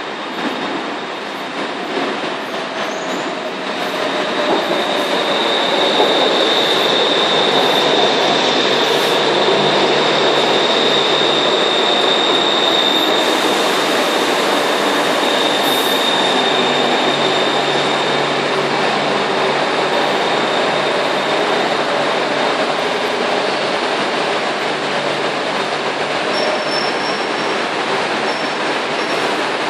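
Two coupled three-car BTS Skytrain EMU-A electric trains running into an elevated station along the platform. The rumble grows louder about four seconds in, with a high, steady wheel squeal from about six to sixteen seconds in.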